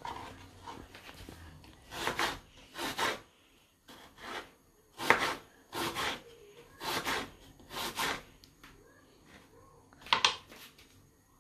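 A kitchen knife slicing through a peeled onion onto a wooden chopping board: about seven separate slow cuts, roughly a second apart, with two short pauses between them.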